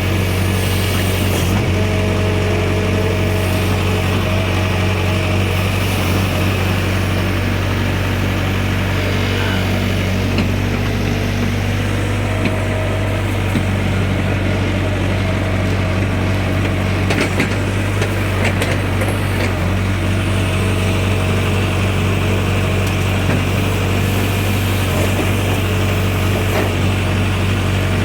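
Backhoe's diesel engine running steadily with a low, even hum, with a few light rattles about two-thirds of the way through.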